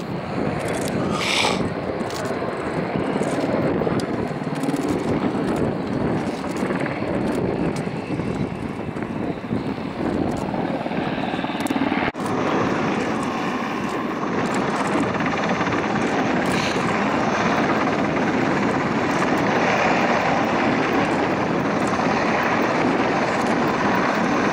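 UH-60J rescue helicopter flying low and hovering: steady rotor and turbine noise, with a brief dropout about halfway through.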